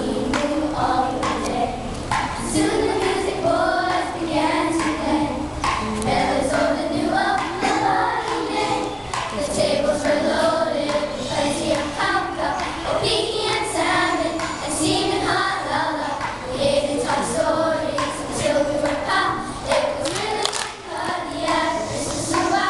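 A group of children singing together a song accompanying hula dancing, with short sharp clicks in the rhythm.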